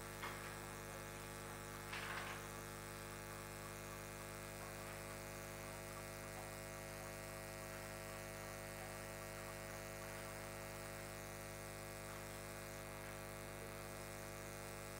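Steady electrical mains hum with many evenly stacked overtones, running unchanged through the pause; a brief soft noise about two seconds in.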